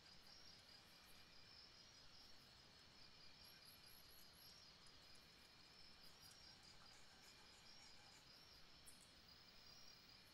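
Near silence: a faint, steady high-pitched pulsing chirp runs through quiet room tone.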